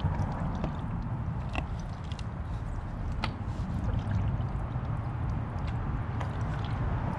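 Dye being squirted from plastic squeeze bottles onto a wet, twisted shirt: faint squirts and a few sharp plastic ticks over a steady low rumble.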